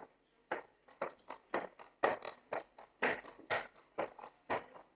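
Brisk, evenly spaced footsteps of a person walking across a wooden parquet floor, each step a short, sharp knock.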